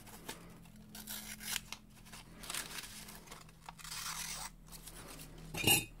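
Small blade of a Victorinox Signature pocket knife slicing through a sheet of paper in several short, hissing strokes, the sharp edge cutting it cleanly into strips. A brief louder sound comes near the end.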